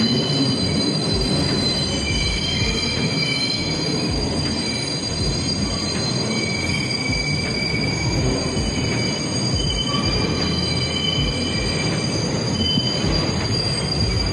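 New York City subway 6 train's wheels screeching as the train rounds the tight curve of the City Hall loop, heard from inside the car: several high squeal tones that come and go over a steady, very loud rumble. The screech comes from the sharp curve of the loop.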